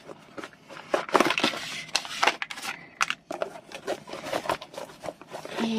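Diamond painting kit box being opened and its wrapped contents handled: irregular rustling and crinkling of paper and plastic packaging, with light knocks and clicks.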